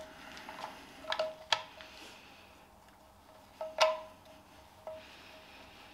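Steel ring spanner clinking on the sump bolt heads as it is fitted and turned, a few sharp metallic clicks, each with a short ring: two about a second in, the loudest near four seconds, a fainter one near five.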